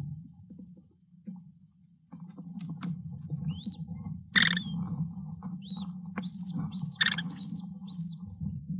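A series of short, high chirping calls, about eight of them over several seconds, from an American kestrel nest box, with two sharp loud scrapes or knocks and a low rustling underneath.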